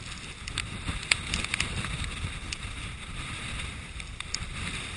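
Heavy storm surf churning against a rock sea wall, with wind buffeting the camera microphone as a steady low rumble. Scattered sharp ticks and taps come through the middle.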